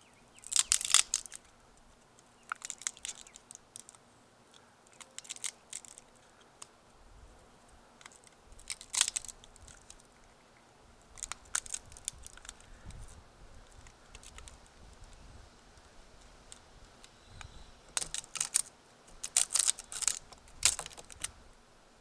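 Small electronic component being pried, scraped and peeled apart by hand to expose its thin layers of copper: irregular bursts of crunching, crackling and tearing, with quiet gaps between, busiest near the end.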